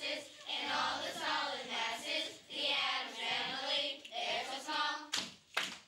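Children's voices singing together in short phrases, with two sharp hits near the end.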